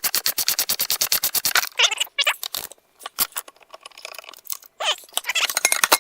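Ratchet wrench clicking in a quick even run of about ten clicks a second, with a short rub and another burst of clicking near the end as bolts are worked.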